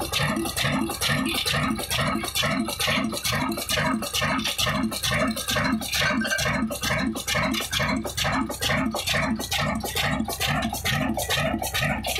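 Old single-cylinder horizontal 'black' diesel engine of Ruston & Hornsby pattern, made by Modern Industries of Daska, running steadily with an even beat of about four strokes a second.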